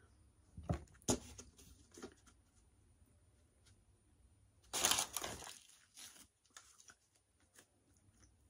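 Quiet handling noises at a table: a few soft knocks, then a short rustle of paper about five seconds in as a paper drink cup with a napkin is picked up.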